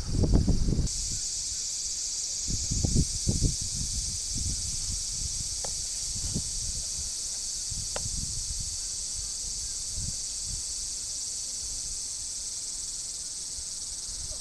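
Steady high-pitched insect chirring that starts abruptly about a second in and carries on unbroken. A few dull low thumps come in the first few seconds.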